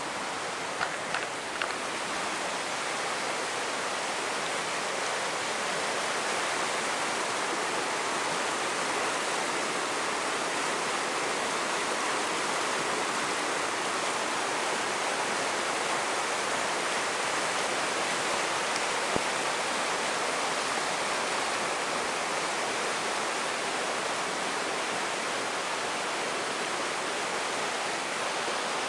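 Mountain stream with white water rushing over rocks: a steady, even roar of water. A few small clicks sound near the start.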